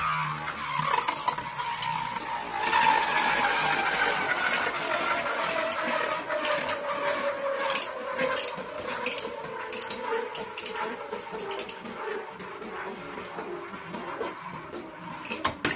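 A Beyblade Burst spinning top whirring in a red plastic stadium. Its hum falls slowly and steadily in pitch as it loses speed, with scattered light clicks throughout.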